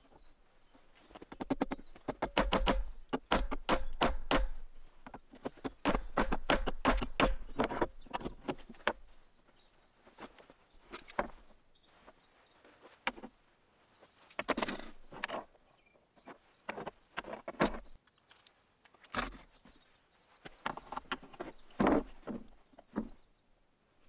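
Hand tools being picked up, worked and set down on a wooden workbench: two runs of quick clicking in the first eight seconds or so, then scattered knocks and taps with pauses between.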